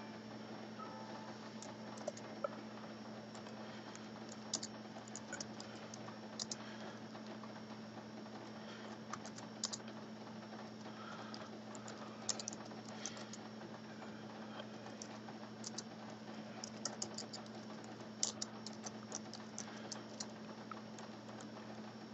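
Typing: light clicks and taps coming in scattered quick clusters, over a steady low hum.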